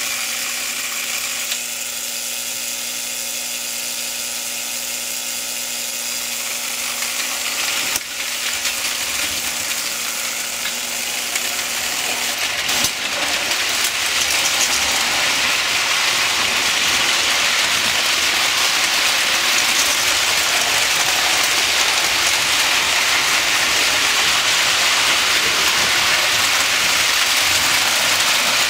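Lionel toy trains running on metal track: a steady motor hum at first, then from about twelve seconds in the clatter of wheels on the rails grows louder and stays loud as a passenger train passes close by.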